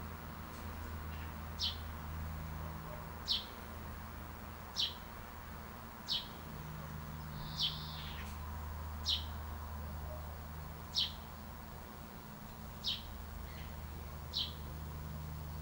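Short, high bird chirps, one every second and a half or so, about nine in all, over a steady low hum.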